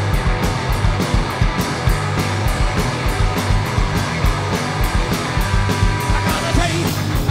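Live rock band playing an instrumental passage: electric guitars and bass over a fast, steady drum beat.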